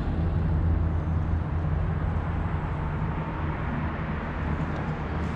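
Steady low wind rumble over the camera microphone while riding an electric scooter along concrete pavement.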